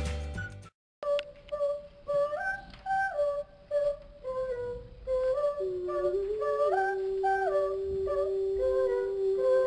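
Instrumental music that breaks off shortly after the start, then unaccompanied voices singing a cappella: a short melody of stepping notes that repeats, joined about halfway by a long held lower note.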